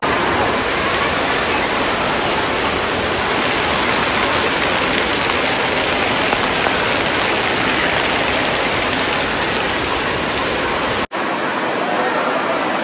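Water from an indoor water park's splash play structure spraying and pouring down onto a person and the wet concrete floor, a steady rain-like hiss and splatter. It cuts off suddenly about eleven seconds in.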